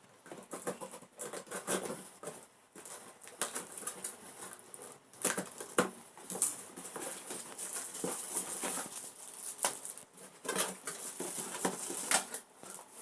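Packaging being handled while the mixer grinder's jars and motor unit are unpacked: irregular rustling with scattered clicks and light knocks.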